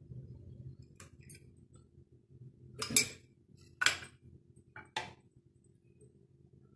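Small glass bowls and a spoon clinking on a countertop as spice bowls are handled: a couple of light taps about a second in, then three sharper clinks about a second apart, the first the loudest. A faint steady low hum runs underneath.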